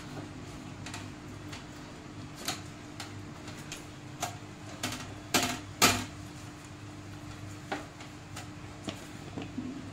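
Scattered light clicks and taps of a whole tilapia and fingers knocking on a stainless steel plate as masala marinade is rubbed into the fish, with two louder knocks a little past halfway, over a steady low hum.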